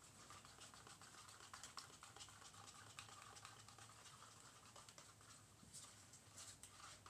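Faint scraping and light taps of a stirrer against a small plastic cup as colour is mixed into soap batter, the taps coming quicker near the end.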